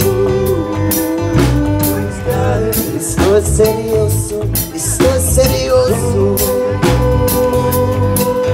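Live band playing: a concert flute close by holding long melody notes over guitar and a drum kit keeping a steady beat.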